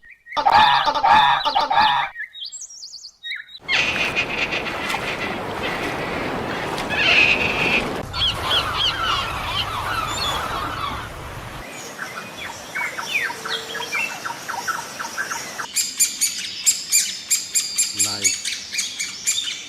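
Birds calling and chirping in a string of short clips that cut abruptly one to the next. The last few seconds hold a fast, regular run of sharp calls.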